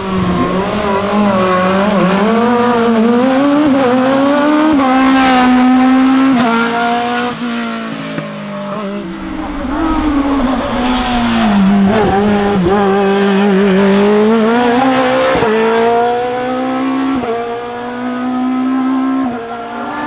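Fiat X1/9 hill-climb race car accelerating hard up the course. Its engine revs climb and then drop sharply at each gear change, several times over.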